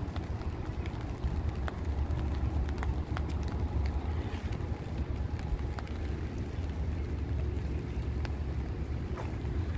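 Wind buffeting the microphone as a low, fluctuating rumble, with a few faint scattered clicks.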